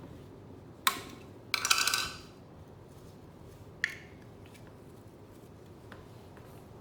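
Hard objects clicking and clattering: a sharp click about a second in, a short rattling clatter just after, and another click about four seconds in, over a steady low hiss.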